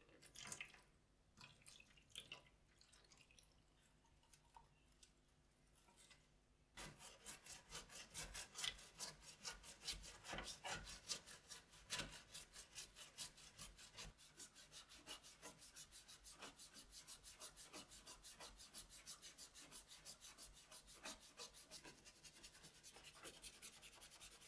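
A few faint drips and trickles of water, then, about seven seconds in, a bristle brush starts scrubbing the red plastic housing halves of a soldering iron with soapy cleaning powder, in rapid, steady rubbing strokes.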